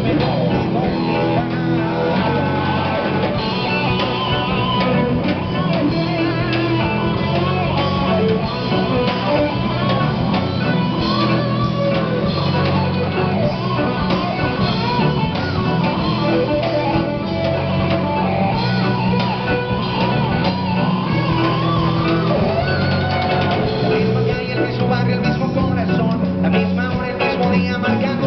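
Live rock band playing a song loudly: electric guitars, electric bass and drum kit, with gliding guitar lines over a steady beat.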